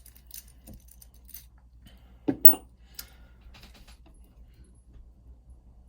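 Metal clicks and clinks of a small Union oval cylinder lock and its key being handled, with the loudest clink about two and a half seconds in.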